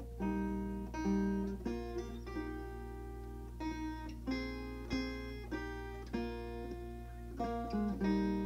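Background music: acoustic guitar playing a run of plucked notes and strummed chords.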